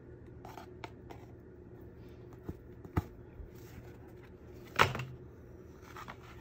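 Handling sounds of a canvas journal being stitched: faint rustling as the thread is pulled through the spine and the covers are turned, with a couple of light taps. About five seconds in comes a louder knock as the journal is laid flat on a cutting mat.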